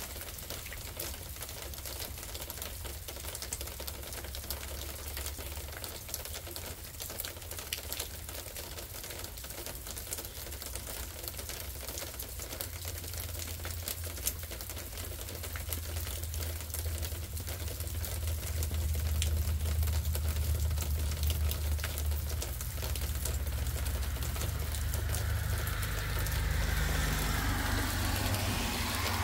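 Rain drops and drips tapping irregularly close to the microphone after a heavy thunderstorm downpour, over a low rumble that swells from about halfway through.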